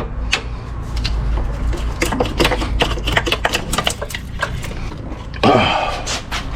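Small hand ratchet clicking in quick runs, with metal tools clinking, as the battery terminal and hold-down hardware are undone. A louder scraping sound comes about five and a half seconds in.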